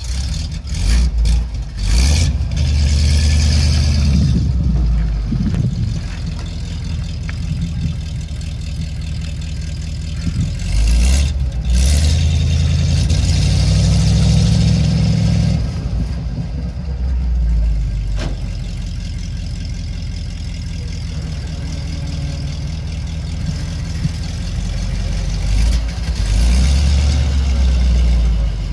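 Old GMC flatbed truck's engine idling, revved up three times for a few seconds each: early, in the middle and near the end.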